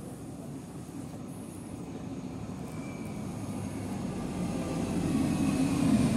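Old MB100-series metro train approaching along the platform, its low rumble growing steadily louder as it comes nearer.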